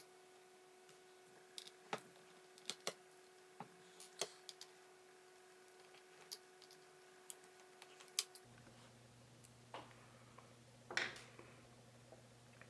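Scattered small clicks and taps of a screwdriver and of handling the laptop as the two screws holding the battery are taken out, with a short scrape near the end. A faint steady hum runs underneath and changes pitch about two thirds of the way through.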